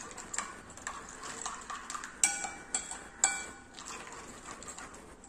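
A spoon stirring beaten eggs with sugar and baking powder in a ceramic bowl, scraping and tapping against the sides, with two louder ringing clinks about two and three seconds in.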